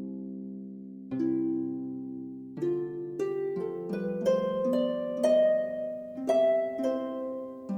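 Calm background music of plucked, harp-like notes and chords that ring and fade away, with notes coming faster in the middle and slowing again near the end.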